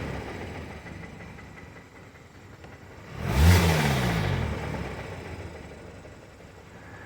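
Kia Optima 2.4-litre four-cylinder engine running with a knocking noise. It is revved once about three seconds in, and the revs fall back to idle. The knock goes with code P1326, a flag for worn connecting-rod bearings, and the mechanic takes it for the known defect in these engines.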